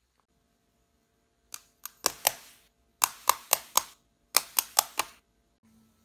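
Three quick runs of about four sharp taps on a hard object, each tap a quarter second or so apart.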